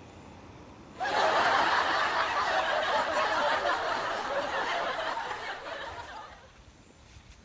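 Laugh-track sound effect: a crowd laughing, cutting in suddenly about a second in and fading out after about five seconds.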